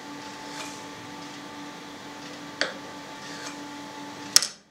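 Kitchen knife cutting through a small soft mould-rind cheese on a cutting board, the blade tapping the board lightly a little past halfway and clicking more sharply near the end, over a steady low hum.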